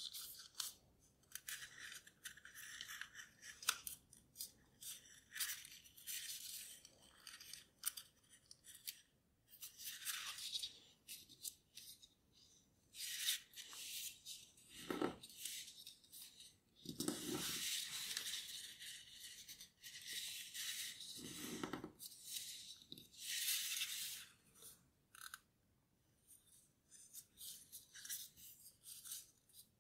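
Sheet of paper rustling and crinkling in the hands as it is folded and its creases pressed flat, in irregular spells with short pauses.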